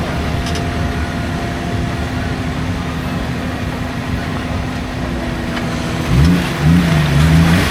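Off-road 4x4's engine running steadily, then revved hard twice near the end.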